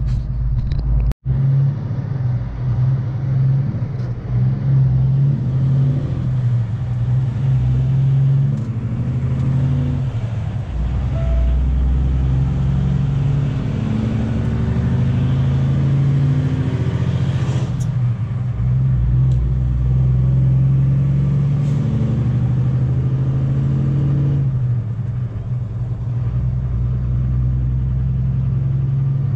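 Semi-truck diesel engine running while driving, heard from inside the cab, with a steady low hum. The engine note climbs and falls a few times as the truck pulls away and changes gears.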